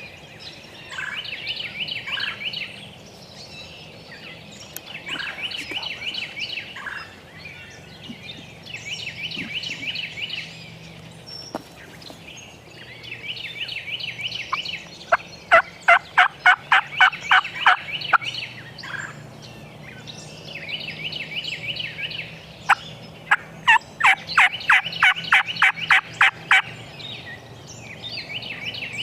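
Wild turkey gobblers gobbling over and over, each gobble a fluttering rattle of about a second and a half, every few seconds. Twice, first around the middle and again later, a loud run of sharp, rapid notes comes in at about five a second, louder than the gobbling.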